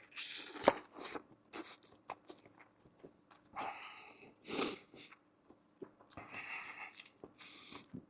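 A person chewing boiled beef kidney close to the microphone, in irregular bursts of mouth noise with a few small clicks.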